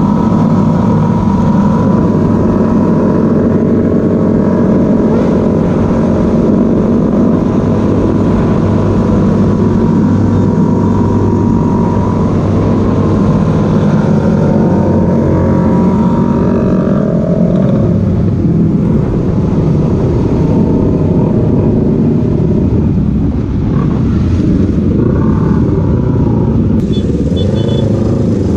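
Motorcycle engine running steadily while riding, its note holding for most of the time and shifting about two-thirds of the way through.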